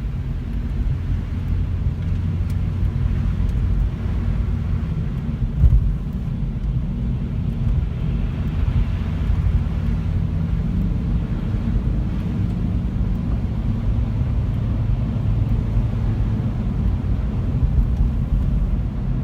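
Honda Civic sedan driving, with a steady low road and engine rumble and one sharp knock about six seconds in as the car goes over a bump. The owner traces this knock on joints and bumps to the front right suspension.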